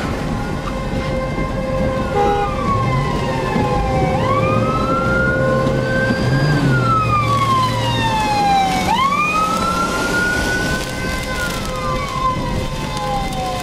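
Siren wailing, its pitch sliding slowly down and up in cycles of about five seconds, over the noise of a car driving in the rain.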